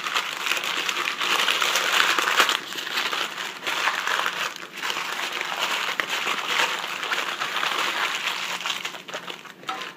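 Aluminium foil and parchment paper crinkling and crumpling as hands fold and wrap them into a tight packet. The rustling runs on with a few brief lulls.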